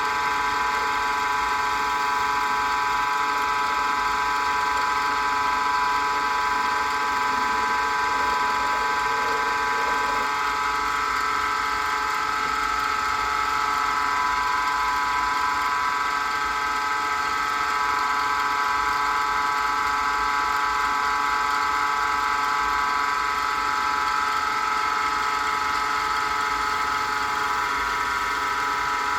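Small wood lathe running steadily with a steady motor whine, spinning a pen blank.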